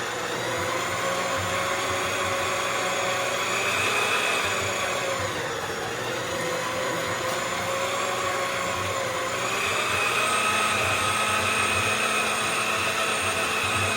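Motor-driven StripMeister wire stripper running steadily with a whine as a long length of insulated copper wire feeds through and is slit. About five seconds in the pitch sags, as if the motor is slowing under the load, then rises again and stays steady from about ten seconds in.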